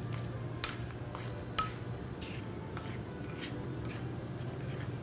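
Spoon clinking now and then against a glass mixing bowl while stirring thick cake batter, a handful of short light clinks with a brief ring, the sharpest about a second and a half in, over a steady low hum.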